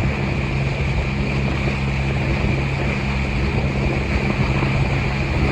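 A sailboat's engine runs steadily while the boat is under way, a low, even hum with wind and water noise over it.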